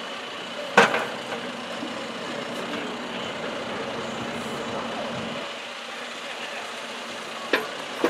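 John Deere backhoe loader's diesel engine running steadily while the boom and bucket are raised, with a sharp metallic clank about a second in and two lighter knocks near the end.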